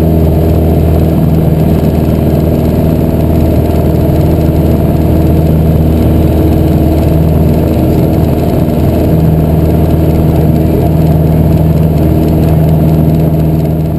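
Piper PA-28-181 Archer II's four-cylinder Lycoming O-360 engine and propeller running steadily during the climb after take-off, heard from inside the cockpit.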